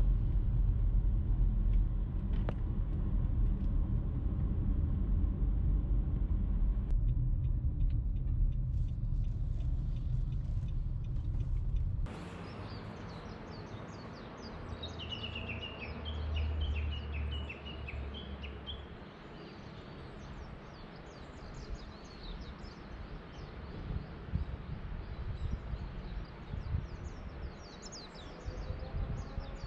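Steady low rumble of a car on the move for about the first twelve seconds. It then cuts off suddenly to quieter open air with small birds chirping, including a quick run of falling chirps a few seconds after the change.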